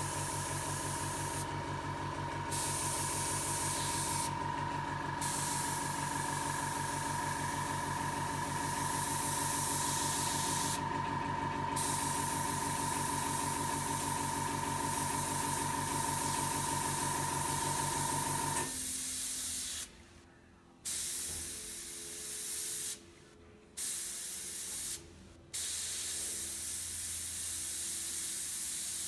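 Gravity-feed airbrush hissing as it sprays, stopping and starting as the trigger is released and pressed again. A steady mechanical hum runs underneath and stops about two-thirds of the way in.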